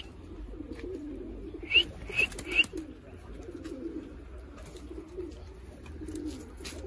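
Domestic fancy pigeons cooing together, a steady low burbling. About two seconds in come three short, high, rising squeaks in quick succession.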